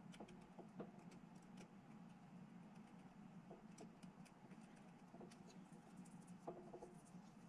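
Faint, scattered small clicks and taps of plastic model-kit parts being handled and pressed together, over a steady low hum.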